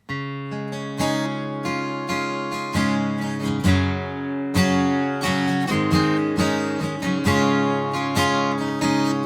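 Acoustic guitar strummed in a steady rhythm of chords, coming in suddenly after silence.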